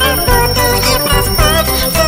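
Music with jingling bells over a steady bass line.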